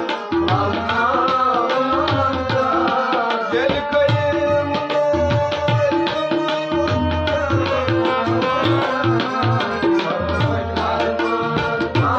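Kashmiri folk song: a harmonium plays the melody while a tabla keeps a steady, quick rhythm and a man sings over them.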